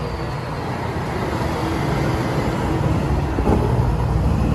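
Vehicle engine running steadily with a low, even rumble.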